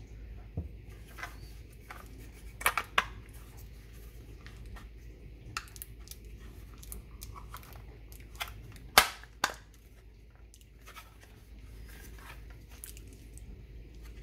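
Hard plastic battery-pack parts of an AEG CX8 cordless vacuum being handled and worked into place: scattered clicks and knocks, the loudest about nine seconds in.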